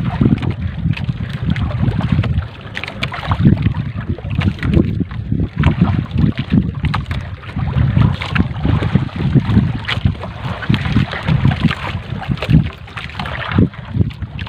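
Wind buffeting the microphone over water slapping and splashing at a small boat's hull, with the wet trammel net rustling and dripping as it is hauled in over the gunwale.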